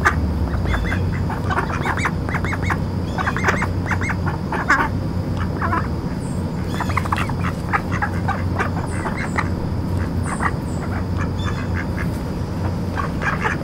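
Mallard ducks quacking in a steady run of short calls, over a steady low hum.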